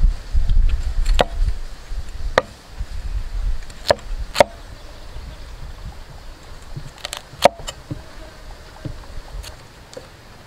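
Cleaver chopping cauliflower on a wooden stump chopping block: about six or seven sharp, irregularly spaced knocks of the blade striking the wood, most of them in the first half.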